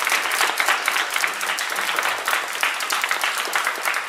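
A group of people applauding, many hands clapping at once without a break.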